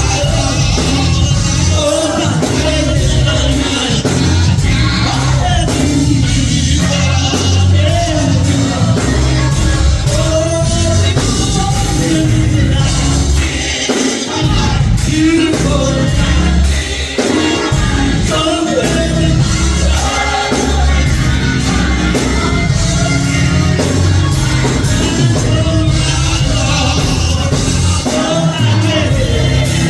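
Live gospel music in a church: singing over a band with heavy bass and a steady drum beat.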